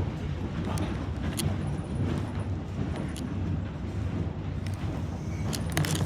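Steady low rumble of a diesel locomotive's engine, with scattered sharp clicks and knocks, the loudest cluster near the end.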